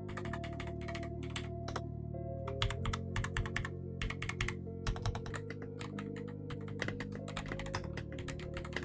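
Typing on an AULA F98 Pro mechanical keyboard with stock Frost Spirit switches: fast runs of keystrokes with brief pauses between them, over background music.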